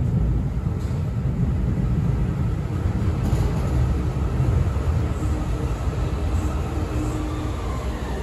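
Yokohama Municipal Subway Green Line 10000-series linear-motor metro train pulling into a station platform, making a steady low rumble. A faint steady hum joins it from about three seconds in.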